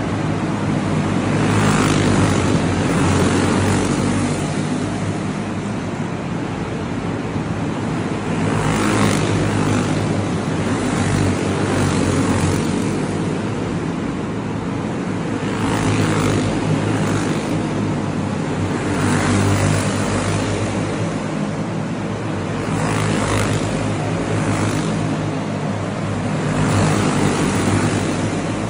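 Clone-class racing karts' single-cylinder four-stroke engines running at race speed inside a hall. Karts pass the fence one after another, the engine sound swelling and fading with each pass every few seconds.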